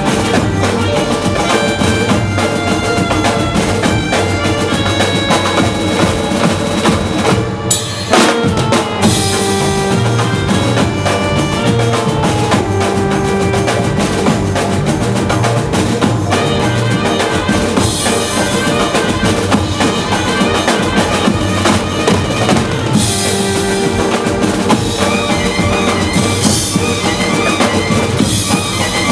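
Mumbai banjo party band playing a dandiya number: heavy drums and percussion keep a dense beat under a held melody line. About eight seconds in, the beat breaks off briefly and comes back with a loud drum fill.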